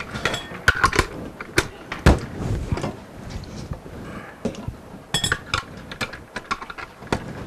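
Metal hand-mixer beaters, bowls and utensils being handled on a kitchen counter: scattered clicks, clinks and knocks, with a duller thud about two seconds in and a short ringing clink a little after five seconds. The mixer's motor is not running.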